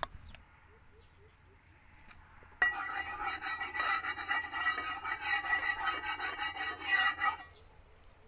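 Metal spatula scraping around the inside of an almost empty frying pan: a dense rasping scrape with a metallic ring. It starts abruptly about two and a half seconds in and stops about five seconds later.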